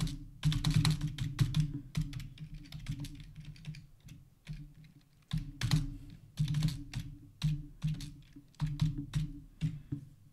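Typing on a computer keyboard: quick runs of keystrokes with short pauses between them, the longest pause a little past four seconds in.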